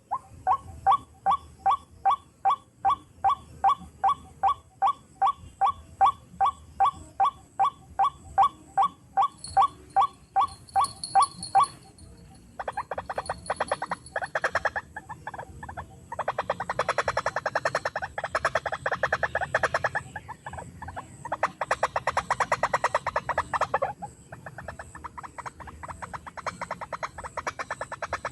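White-breasted waterhen calls: a steady series of loud, evenly spaced notes, about two and a half a second, then, about twelve seconds in, a fast rattling run of notes that breaks off and resumes a few times.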